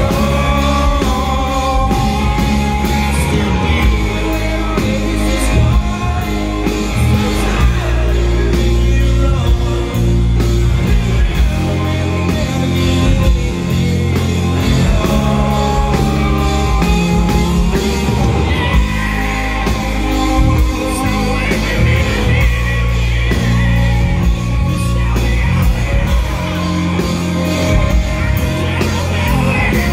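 Rock band playing live and loud: electric guitar, bass guitar and drums, with no lyrics sung in this stretch.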